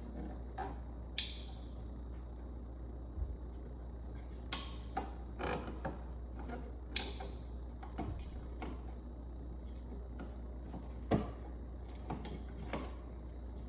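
Irregular sharp clicks and knocks, about a dozen, the loudest about a second in, midway and near the end, over a steady low hum.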